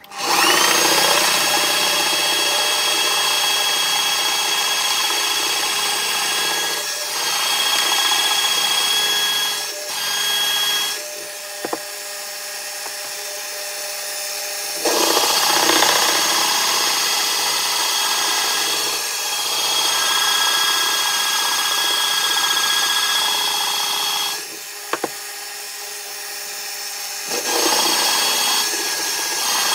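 Benchtop pillar drill running with a forstner bit boring holes into an oak blank. The motor spins up at the start with a steady high whine, and the cutting grows louder each time the bit is fed into the wood, several times over.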